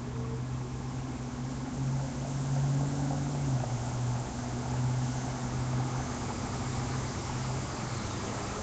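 Street traffic noise: a steady low engine hum under a hiss of tyres on wet pavement, somewhat louder for a few seconds in the middle.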